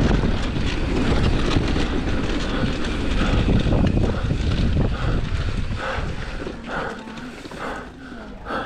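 Commencal Meta enduro mountain bike rattling and rumbling down a rough trail, with wind on the microphone. It eases off about six seconds in, leaving the rider's hard, rhythmic breathing, about one breath every half second.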